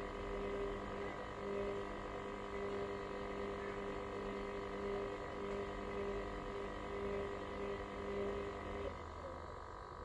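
Hoover washer-dryer running late in its cotton 90 extra-dry cycle: a steady motor hum with a higher whine above it. The lower hum stops about nine seconds in while the whine keeps going.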